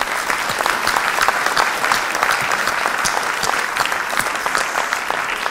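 Audience applauding steadily, a dense patter of many hands clapping, saluting a local football team's Coupe de France run; it fades out about a second after the end.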